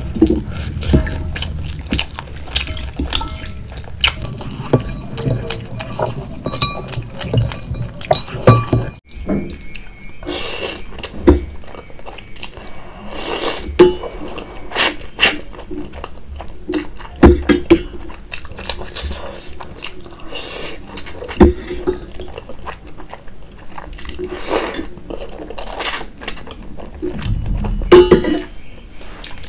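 Close-miked eating sounds: soupy noodles slurped and chewed, with many short wet clicks and a fork clinking against the bowls.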